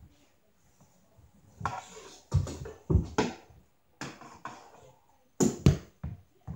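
Hockey stick and ball knocking and scraping on a wooden floor during stickhandling practice: quiet at first, then a run of irregular knocks and scrapes, the loudest a few seconds in and again near the end.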